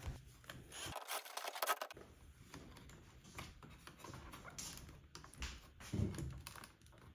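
Faint scattered clicks and scrapes of a screwdriver and plastic parts as screws are taken out of a car radio unit.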